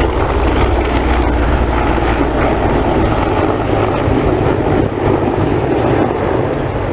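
Sikorsky CH-53 heavy transport helicopter flying past, its rotor and turbine engines making a loud, steady din. The deep low end of the rotor sound weakens somewhat in the second half.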